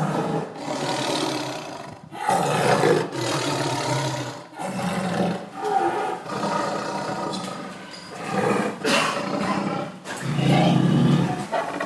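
Big cat growling and roaring angrily: a run of loud, rough roars, each a second or two long, one after another with only short breaks.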